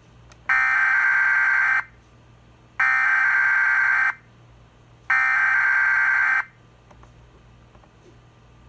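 Emergency Alert System SAME header: three identical bursts of buzzy digital data tones, each a little over a second long and about a second apart. This is the coded header that opens an emergency alert broadcast.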